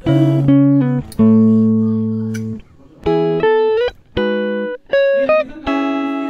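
Background music: a melody of plucked-string notes that each start sharply and ring away, a few of them sliding up or down in pitch.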